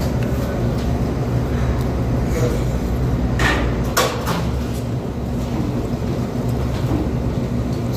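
A steady low mechanical hum runs underneath, with a couple of short sharp clicks a little past the middle, from eating at a restaurant table.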